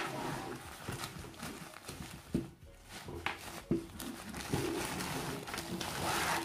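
Hands loosening the drawstring of a fabric tripod carry bag and handling it: soft cloth rustling with a few light knocks against the table.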